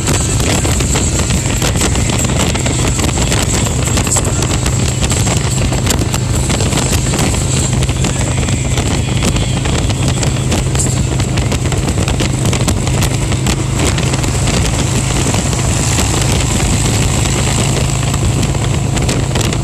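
Harley-Davidson Road Glide Special's V-twin engine running steadily at freeway cruising speed, mixed with constant wind rush and road noise on the open microphone.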